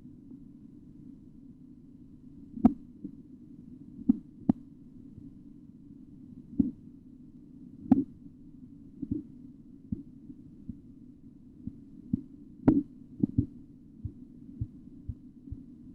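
Korotkoff sounds heard through a stethoscope over the arm's artery: short thumps about once a second, unevenly spaced and varying in strength, over a steady low hum.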